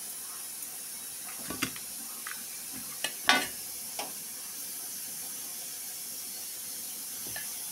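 A few short taps and clicks, the loudest about three seconds in, as slivered almonds are dropped and pressed by hand onto soft besan barfi in a steel plate, over a steady background hiss.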